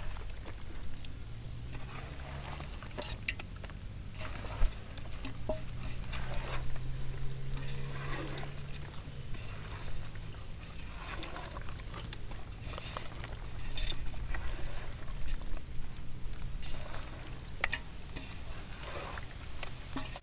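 A hand mixing fish pieces in a metal bowl of thick chili, turmeric and rice-flour marinade: irregular wet squelching and slapping of the coated fish against the bowl.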